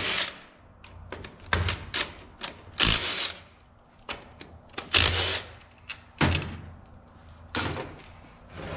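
A cordless impact wrench running in short bursts, backing out the bolts that hold the pump to the front of a 48RE automatic transmission, with clunks of metal in between. There are about eight separate bursts.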